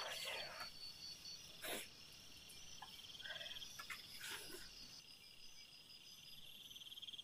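Faint night insects trilling steadily at two high pitches, with a few short rustles in between.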